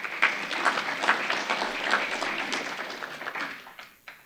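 Audience applauding, many hands clapping at once, the clapping thinning out and dying away near the end.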